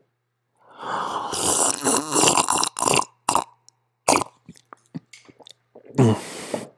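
A man burping loudly: a long, rough burp about a second in, a few short sharp clicks, then a second, shorter burp near the end.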